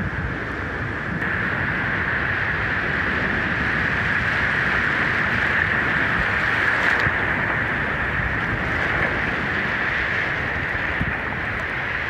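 Shallow surf breaking and washing over the shore close to the microphone, a steady rushing hiss of water.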